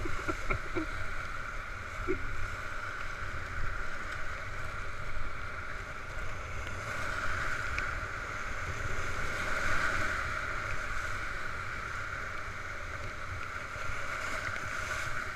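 Whitewater rapids rushing steadily around a raft, heard from on board, with wind buffeting the microphone as a low rumble.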